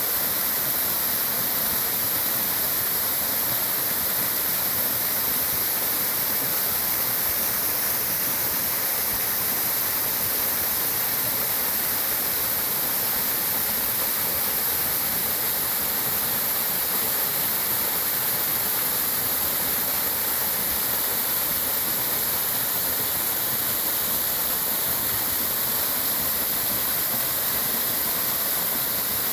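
Waterfall about eight metres high, its falling water making a steady, unbroken rush.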